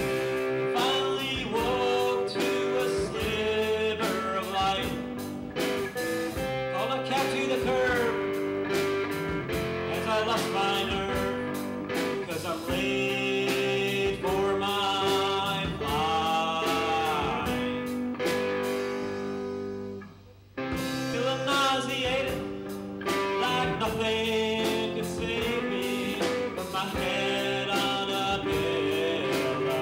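Live rock band playing a song on electric guitars and drum kit, with bending guitar lines. The music stops for about a second about two-thirds of the way through, then comes straight back in.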